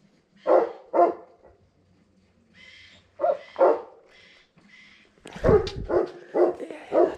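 A dog barking: short barks in pairs, then a quicker run of barks over the last two seconds.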